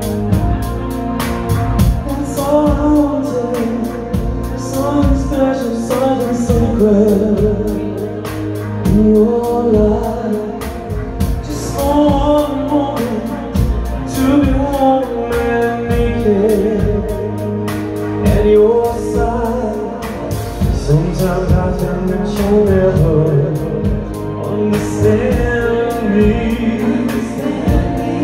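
Live pop band playing, with a singer's vocals over drums, keyboards and guitar and a steady beat.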